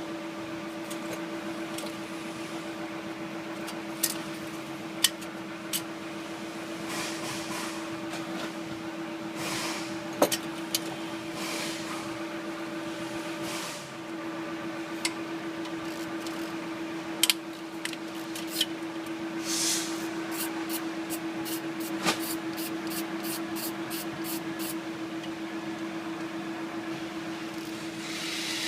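Hand tools working on an engine in a workshop: scattered metal clinks and knocks, a few short hisses, and a run of quick, even clicks in the last third, over a steady hum.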